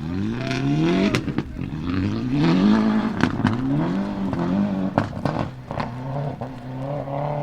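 Subaru Impreza S7 WRC's turbocharged flat-four engine revving up and down several times, with short sharp cracks through it that are typical of its anti-lag system.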